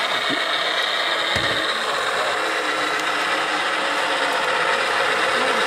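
Radio-controlled scale MAN timber truck driving under a load of long timber: a steady whirr from its electric drive motor and gearbox.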